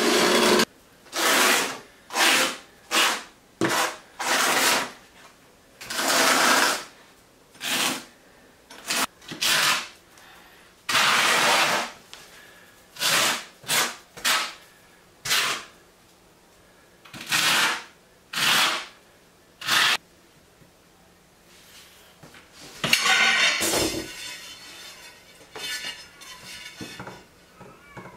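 Notched trowel spreading thinset mortar on a floor: a series of separate rough scraping strokes, each about half a second to a second long, with a louder, rougher stretch of scraping near the end.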